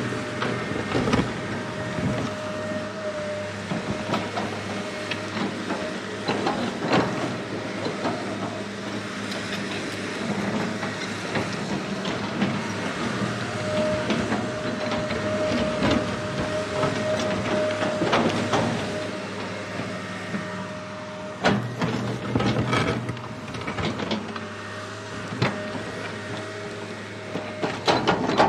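Small electric motors and plastic gears of a wired toy excavator whirring as it drives and works its arm. A thin steady whine comes and goes, and plastic clicks and knocks are scattered throughout.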